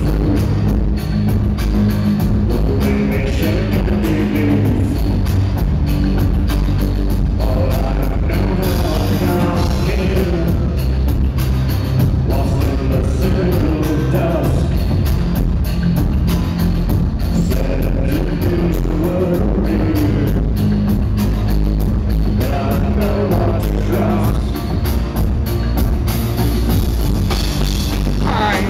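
Loud live band music heard from the crowd: a male lead singer singing over keyboards, heavy bass and a live drum kit.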